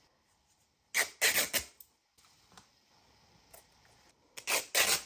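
Cotton fabric strips torn by hand, two short ripping tears: one about a second in, one near the end.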